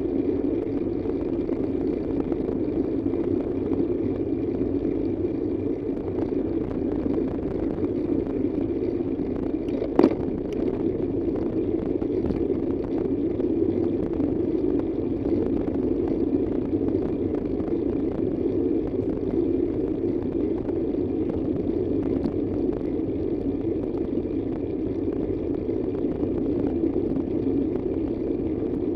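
Steady road and engine noise of a moving vehicle, even throughout, with a single sharp click about ten seconds in.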